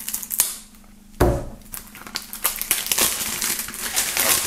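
Plastic shrink-wrap on a CD jewel case being slit with a knife, a single knock about a second in, then the film crinkling and crackling as it is peeled off the case.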